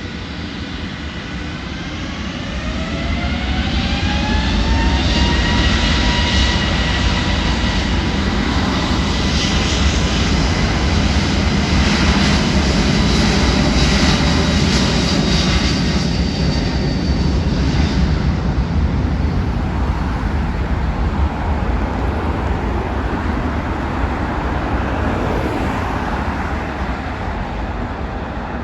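Airbus A321neo's Pratt & Whitney PW1100G geared turbofans spooling up to takeoff thrust: a whine rising over the first few seconds, then a steady jet engine noise with high tones during the takeoff roll. It fades slowly over the last ten seconds.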